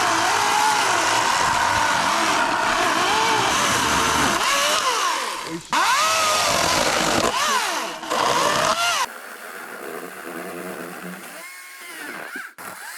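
Small petrol engine running and revving up and down again and again, loud for the first nine seconds or so, then dropping to a quieter run with a few more revs near the end.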